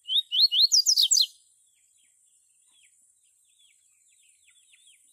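Caged papa-capim seedeater singing a quick loud phrase of rising whistled notes that climb higher in pitch, lasting just over a second, followed by a few faint, short, falling chirps.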